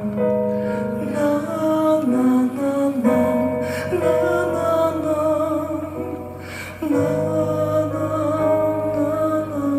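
Live rock band playing a slow song: guitar and a singer holding long, wavering notes, with two cymbal crashes.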